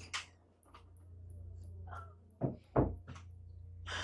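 Two dull thumps in quick succession about two and a half seconds in, over a low steady hum.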